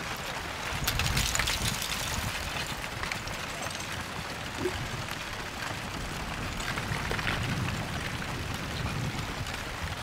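Front of a slowly advancing lava flow: a steady crackling and clinking of its crust and loose rock blocks, over a low rumble. The crackling is busiest about a second in and again near the end.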